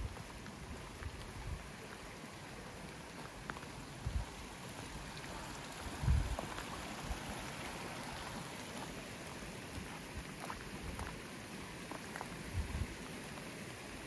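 Walking on a wet, leaf-covered forest trail: a few dull footstep thuds, the heaviest about six seconds in, over a steady hiss of light rain and a small creek's running water.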